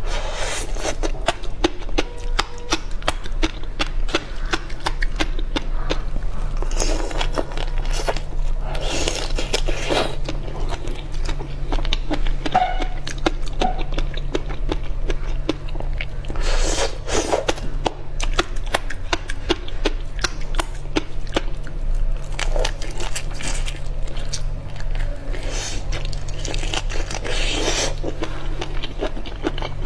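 Close-up eating sounds of raw prawns topped with fish roe being bitten, sucked and chewed: dense crackly clicks with louder crunchy bursts now and then. A steady low hum runs underneath.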